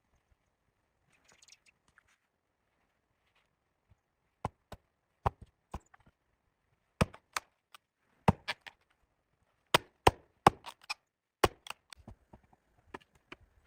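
Chopping on wood: about a dozen sharp knocks, often in quick pairs and irregularly spaced, starting about four seconds in.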